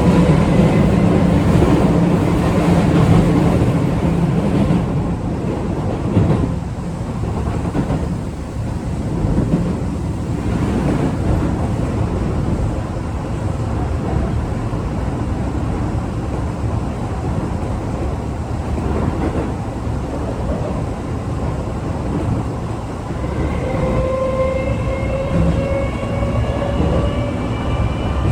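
Keio 8000 series EMU heard from inside a motor car, with Toshiba permanent-magnet synchronous motor VVVF traction. The motor whine fades in the first second as the train stops taking power, then it runs with steady wheel and rail noise. About 23 s in, a high motor whine returns and slowly rises in pitch as the train takes power again.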